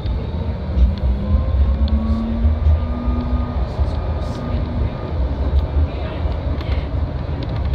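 Flexity tram running along the track, heard from inside the driver's cab: a steady low rumble with a faint motor whine that rises in pitch over the first few seconds and then fades.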